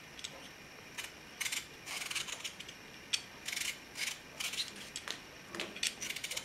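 Y-shaped vegetable peeler scraping strips of skin off a raw potato in short, repeated strokes, about two a second.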